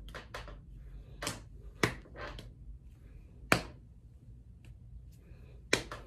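A handful of short, sharp taps and clicks from hand movements, three about half a second apart after the first second, then single ones at about three and a half seconds and near the end.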